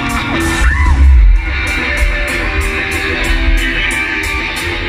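Live rock band playing, guitar-led, with a steady high tick about three times a second and a heavy low swell of bass about a second in.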